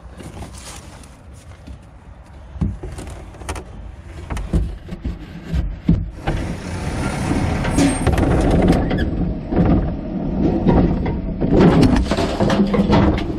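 Sound from inside a plastic garbage cart: a few knocks against the cart, then about six seconds in the garbage truck's noise rises loud as its automated arm grips, lifts and tips the cart, with repeated knocks and rattles of the plastic bin and a brief squeal near the middle.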